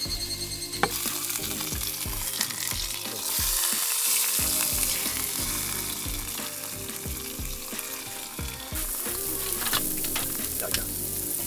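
Meat sizzling as it fries on a hot griddle plate over a gas-cartridge camp stove, a steady hiss that grows louder about three seconds in.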